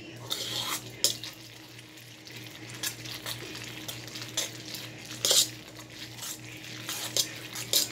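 A metal utensil scraping and clinking against the inside of a stainless steel pot in irregular strokes as mac and cheese is stirred, with the loudest clink a little past halfway.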